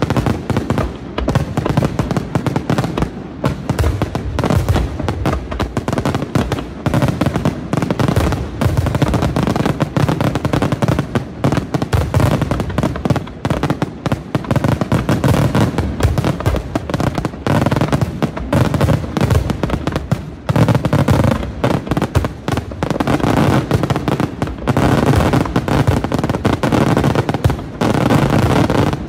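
Aerial fireworks display at full intensity: shell bursts and crackling come in a dense, continuous barrage, too fast to count, with no pause.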